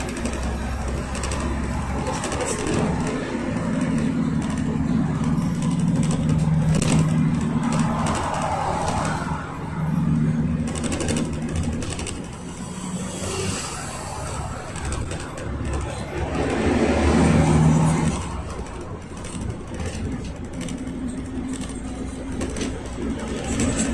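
Inside the cabin of a GAZelle Next minibus on the move: its Cummins 2.8-litre four-cylinder turbodiesel pulls with an engine hum that swells and fades as the driver works the throttle and manual gearbox, over steady road and tyre noise. The engine is loudest near the end of the middle stretch.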